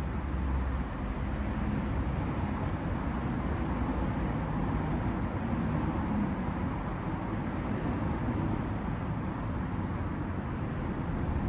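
Wood fire burning in a small micro stove: a steady rushing noise with a low rumble and a few faint crackles.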